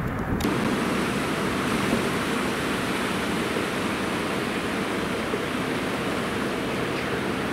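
Steady rushing of turbulent water boiling up in the tailrace below a hydroelectric dam, starting about half a second in.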